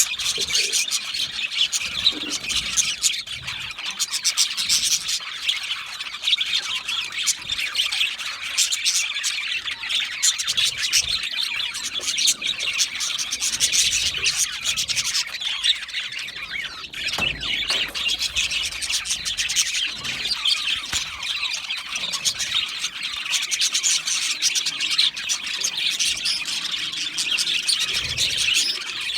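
A flock of budgerigars chirping, chattering and squawking all at once in an aviary, a dense, continuous mass of quick high-pitched calls.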